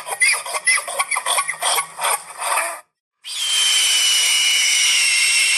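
Wild animal calls: a rapid run of short chirps, several a second, each dropping in pitch. A cut of silence follows about three seconds in, then a different recording with a steady high whistling call over a hiss.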